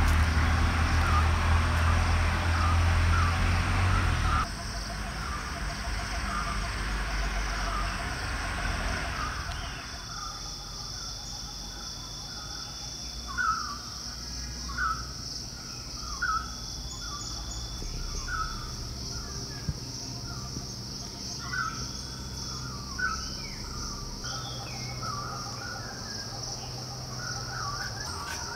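Forest ambience: birds calling over and over in short notes, over a steady high insect buzz. A low rumble in the first four seconds stops abruptly.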